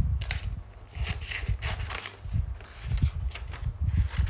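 Paper craft materials being handled: irregular rustling with soft low thumps.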